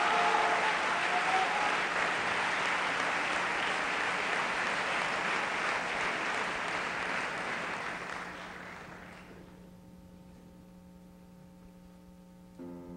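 Theatre audience applauding, the clapping dying away about nine seconds in and leaving only a low steady hum; a grand piano begins to play right at the end.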